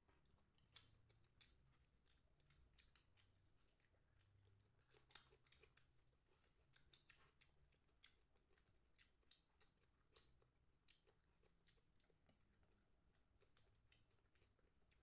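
Faint eating sounds: irregular, quiet wet clicks and smacks of chewing mouths, a few a second.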